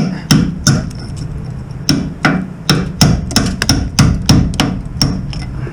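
A hammer striking the rusty steel of a Toyota Hilux about fourteen times in quick, uneven strokes, with a short pause about a second in, knocking off thick layers of rust.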